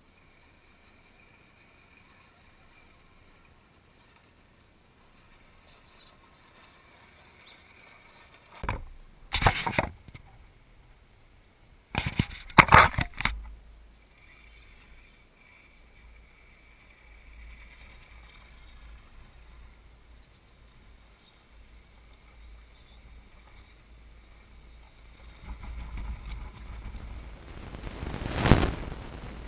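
Radio-controlled scale Land Rover Defender crawler driving over rocky ground: a faint thin whine at first, a few loud bumps and knocks about nine to thirteen seconds in, then motor and tyre-on-gravel noise growing louder as the truck comes close, loudest just before the end.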